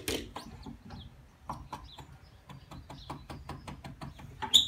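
Table saw rip fence being slid along its front rail and set, giving a string of small irregular clicks and rattles and a few short squeaks, with one sharper metal click near the end.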